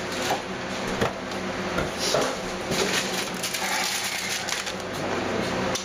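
Plastic wrapping and cardboard packaging crinkling and rustling as they are handled, with scattered light knocks of items set down on the table.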